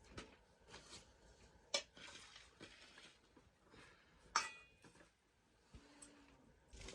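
Cookware and utensils clinking and knocking during food preparation: scattered light clicks, with two sharper clanks, the second, about four and a half seconds in, the loudest and ringing briefly.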